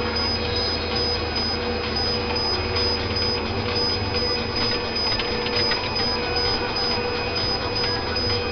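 Forestry harvester at work: the machine's engine and hydraulics running steadily with a constant high whine, while the Waratah 470 harvester head feeds and delimbs a tree, adding some clatter from the stem and branches.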